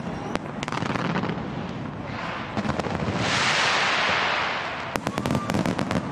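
Fireworks display with repeated sharp bangs and crackles of bursting shells. A loud hissing rush swells about three seconds in and lasts a couple of seconds, then a quick cluster of pops follows near the end.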